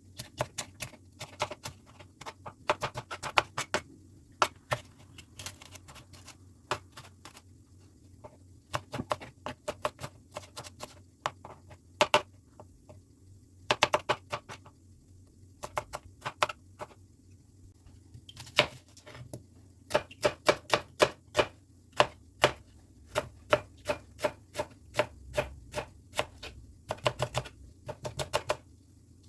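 Knife chopping food on a cutting board: runs of quick, sharp strokes, several a second, broken by short pauses.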